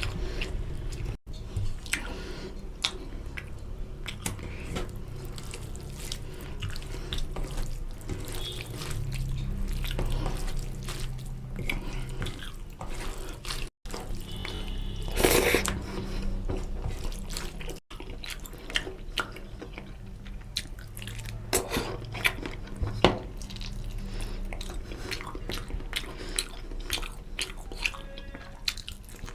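Close-miked wet eating sounds of chicken curry with rice and gravy: squelching, chewing and lip smacks, a steady run of small wet clicks with a few louder bites.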